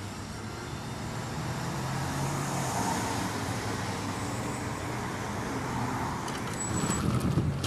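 A 2015 Ford Transit 150 shuttle van with a 3.7 L V6 drives past and away, its engine a steady low hum over tyre and road noise. Near the end other traffic passes closer and the sound gets louder, with a few sharp clicks.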